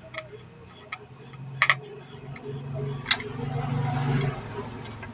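A handful of sharp clicks and taps from tools on a Bluetooth speaker's plastic casing and circuit board as it is being opened up; the loudest is a quick double click about one and a half seconds in. A low hum runs under the middle.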